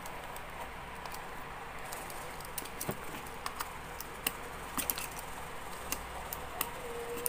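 Utility knife blade scratching and ticking as it slits clear tape on white cardboard phone boxes, with scattered small clicks of the boxes being handled.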